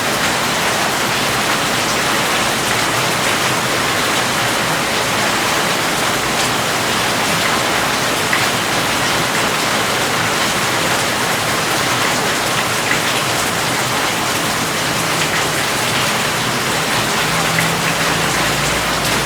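Steady rain falling, a dense even hiss with scattered drop ticks. A low rumble comes in near the end.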